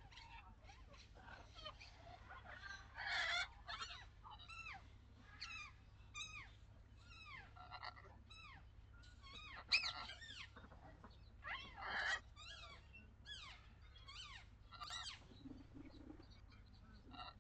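Birds calling: many short chirping calls that arch up and down in pitch, following one another irregularly, over a steady low rumble of wind.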